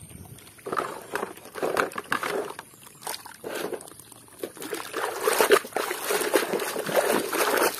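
Muddy water sloshing and splashing in a plastic basin as a hand scrubs a plastic toy mask in it, getting louder and busier about five seconds in.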